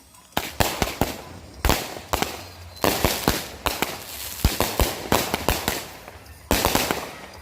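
Consumer fireworks going off: a fast, irregular string of sharp bangs, several a second, with stretches of dense crackling in between.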